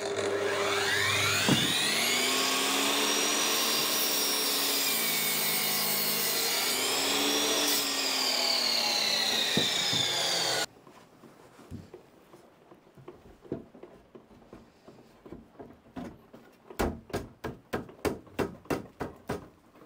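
A Ryobi mitre saw running and cutting through a timber board, its motor pitch dipping twice as the blade is drawn through the wood and recovering, before cutting off suddenly about ten and a half seconds in. Quieter knocks follow, with a quick run of sharp knocks near the end.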